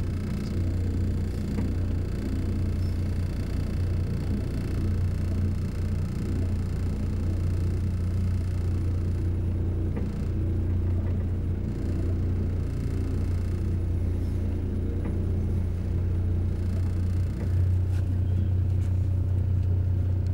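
Steady low rumble of a vehicle's engine, heard from inside the vehicle.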